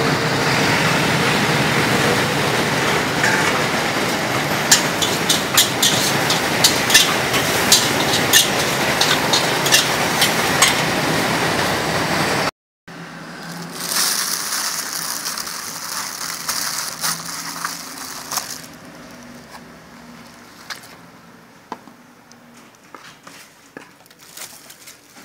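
Stir-frying at a street wok: a metal ladle scraping and clacking against the wok two or three times a second over steady street noise. It cuts off suddenly about halfway, and a much quieter stretch follows with a high hiss that stops and a few light clicks.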